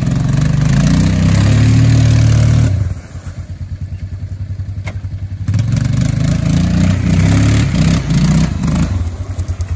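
ATV engine revving hard as its tyres churn through muddy creek water trying to climb out. It drops back to a lower idle about three seconds in, then revs hard again from about five and a half seconds until near the end.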